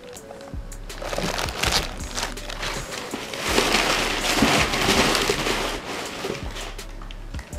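Plastic bag and kraft packing paper crinkling and rustling as a bagged cylinder head is handled and unpacked, louder for a spell about a second in and again through the middle.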